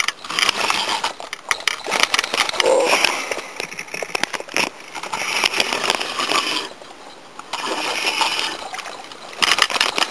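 A fishing reel cranked in spells with short pauses, its gears clicking rapidly, as a hooked carp is wound in.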